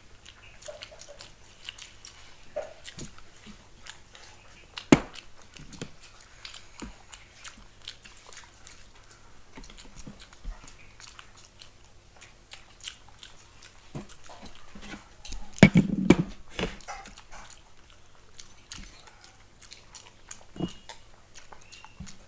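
Hard-boiled eggs being eaten fast: scattered chewing, mouth clicks and swallowing, washed down with water. A sharp click about five seconds in and a louder burst of sounds about two-thirds of the way through.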